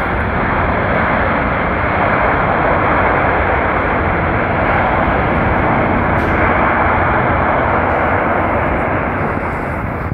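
Antonov An-225's six turbofan engines, a loud, steady jet noise as the aircraft rolls out on the runway after landing, easing slightly near the end.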